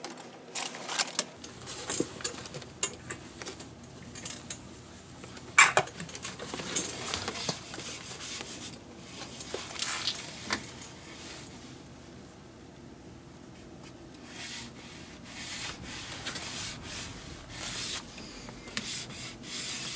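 Glove lace being drawn through the lacing holes of a leather baseball glove: intermittent rubbing swishes of lace on leather, with scattered clicks and one sharper stroke about a third of the way in.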